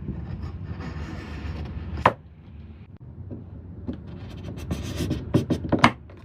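Wooden pieces being handled and worked: rubbing and scraping over a low rumble, one sharp knock about two seconds in, then a quick run of knocks and clicks near the end.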